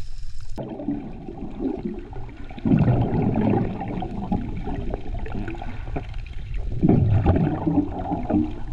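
Muffled underwater sound of water rushing and gurgling past the camera's microphone as a swimmer moves along, with two louder surges about three and seven seconds in.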